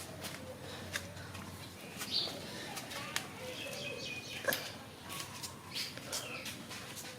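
Short, high bird chirps now and then, some falling in pitch, mixed with scattered sharp clicks and taps.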